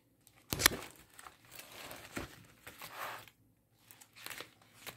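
Clear plastic page protectors in a binder crinkling and rustling as the pages are turned by hand, with a sharp crackle about half a second in and softer rustling after.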